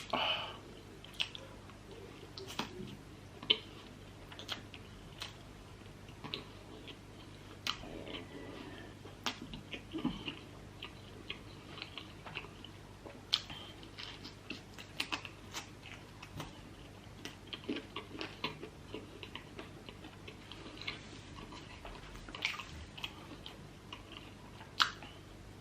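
A person chewing and biting food close to the microphone: irregular wet mouth smacks and sharp clicks, the loudest a few seconds in and near the end.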